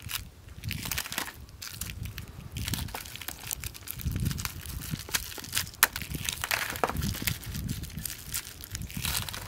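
Disposable plastic lighters clicking and clattering against one another as they are pulled from a plastic tray and dropped onto a pile on cardboard. The clicks come irregularly throughout, with one sharp click a little before six seconds.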